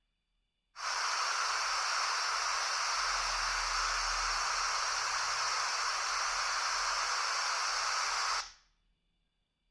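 Steady hiss like static, starting abruptly about a second in and fading out quickly about a second before the end.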